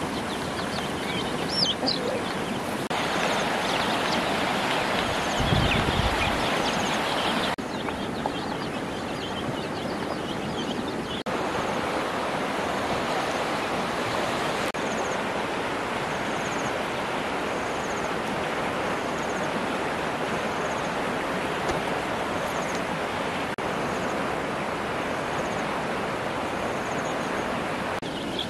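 Steady rushing outdoor background noise whose level shifts several times. Faint short high chirps repeat about once a second through the second half.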